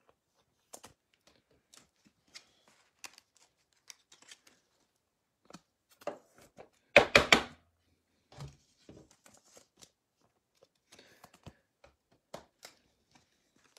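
Trading cards being handled: faint scattered clicks, taps and rustles as cards are picked up, turned and shifted, with one brief louder sound about seven seconds in.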